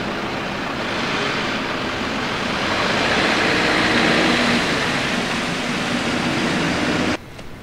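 Road traffic: a stream of cars and vans, one towing a trailer, driving past close by. The tyre and engine noise swells to a peak midway, then cuts off suddenly near the end.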